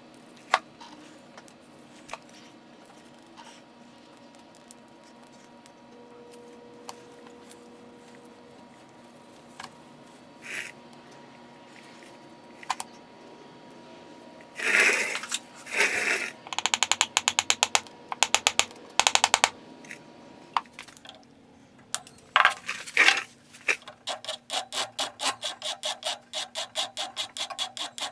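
Scattered light clicks and taps, then quick, evenly spaced back-and-forth scraping strokes of hand work on metal or wood, a few strokes a second, running in spells through the second half.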